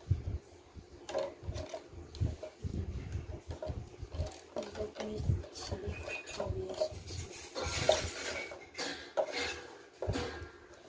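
Thin plastic bottle being handled and worked by hand: irregular crinkles, clicks and light knocks, with a denser burst of crackling about three-quarters of the way through.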